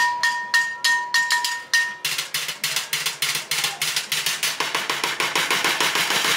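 Street bucket drumming: drumsticks beating a fast rhythm on upturned plastic buckets and a metal can. A ringing tone sounds under the hits for the first two seconds, then the strikes run together into a rapid, even roll.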